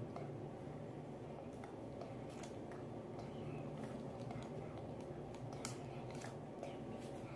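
Wax crayon scratching on paper in short, scattered strokes, over a low steady hum.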